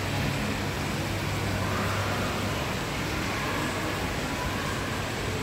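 Steady, even rushing noise with a low hum underneath.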